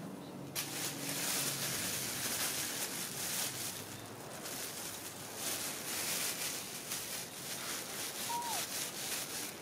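Steady high hiss of outdoor background noise, with one short falling squeak about eight seconds in.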